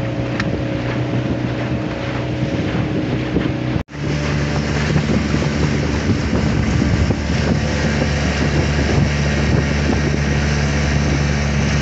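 Johnson 25 hp outboard motor running steadily under way, with wind buffeting the microphone. The sound drops out for an instant about four seconds in, then the engine carries on at the same steady pitch.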